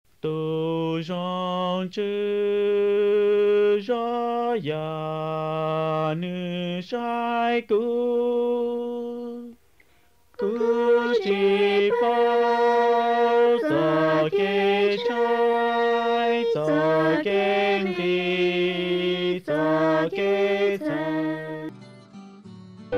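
Unaccompanied chant-like singing: a slow melody of long held notes stepping up and down. It breaks off for about a second near the middle, resumes, and fades near the end.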